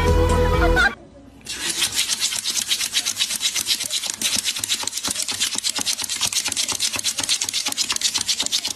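Background music cuts off about a second in. After a brief pause comes fast, continuous scratching, many strokes a second, from a small fluffy dog's claws pawing at a hard tabletop.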